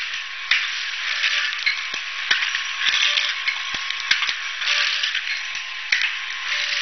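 Automatic fertilizer packaging machine running: a hiss that swells and fades over and over, with repeated sharp clicks and knocks and a steady high whine underneath.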